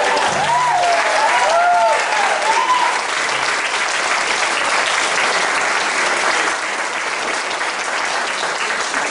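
Audience applauding at the end of a choir's song, with a few whooping cheers in the first three seconds.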